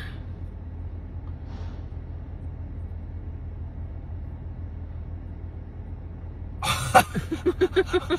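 A steady low hum, then about six and a half seconds in a person bursts out laughing in quick repeated 'ha' pulses.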